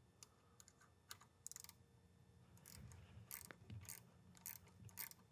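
Faint metallic clicks and light taps of hand tools and small parts on a can seamer's arm bearing assembly as the bearing cap and grease fitting are removed. A quick rattle of clicks comes about a second and a half in, and the clicking gets busier from about three seconds in.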